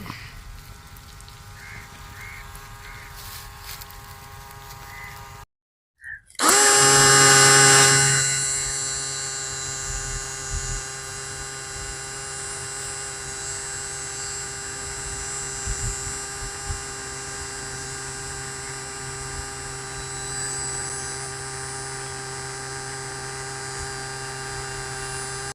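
Small electric motor on a student-built water-sprinkler robot. After a brief cut to silence about six seconds in, it starts loud, then settles into a steady hum with a high whine over it.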